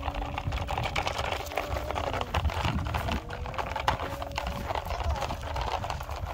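Plastic toy dump truck dragged by a string over gravelly dirt, its wheels and body rattling and clicking continuously against the pebbles. A steady hum runs underneath.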